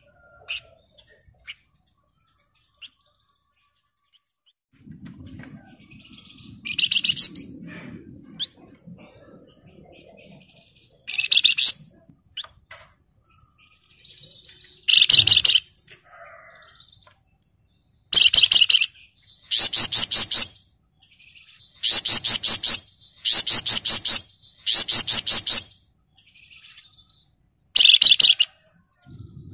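A flamboyan (wergan Jawa) songbird giving short bursts of very rapid, tight, shrill rattling trills. A few come spaced out at first, then in quick succession in the second half.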